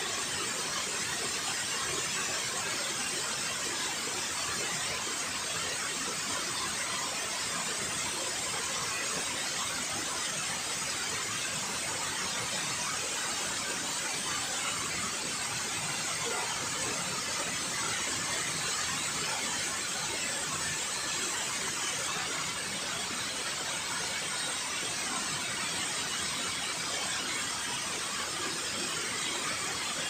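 Steady rush of river water falling over a concrete dam spillway, an even hiss weighted toward the high end.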